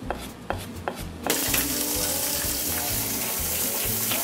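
A kitchen knife chops carrots on a cutting board with a few quick taps. About a second in, a loud, steady sizzle cuts in suddenly: food frying in a hot pan over a high flame.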